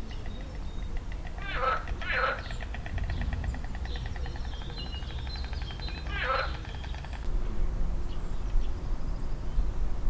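Pond frogs croaking: two short pulsed croaks about half a second apart, then a third a few seconds later, over a faint fast trill that stops about seven seconds in. A steady low rumble lies underneath.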